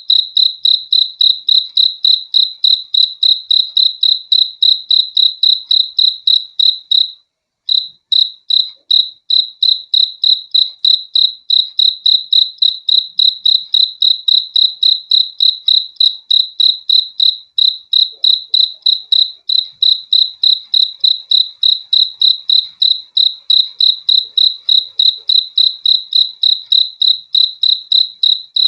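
Cricket chirping steadily, a high-pitched chirp about three times a second, with a brief break about seven seconds in.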